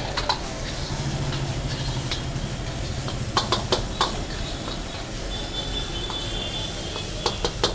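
Oil sizzling in a large wok as a steel ladle stirs chopped vegetables, with sharp clinks of the ladle against the pan in two clusters, a few seconds in and near the end.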